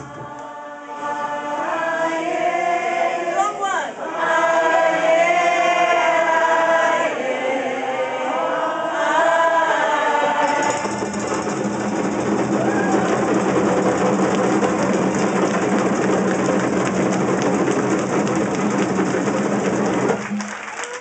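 A group of voices sings a chant together. About halfway, djembe drums come in with fast, dense drumming under the voices, which stops sharply together just before the end.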